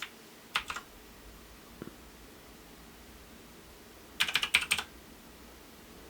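Keys being typed on a MAXTILL TRON G750 mechanical keyboard: a few separate key clicks early on, then a quick run of about eight keystrokes a little after four seconds in.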